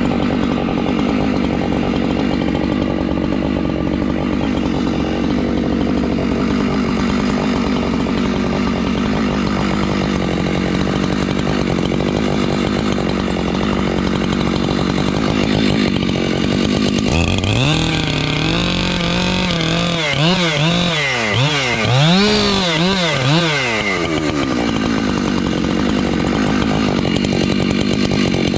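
Gas chainsaw cutting a large pine, its engine running at a steady high speed under load. For several seconds in the middle the engine speed rises and falls repeatedly before settling back to a steady cut.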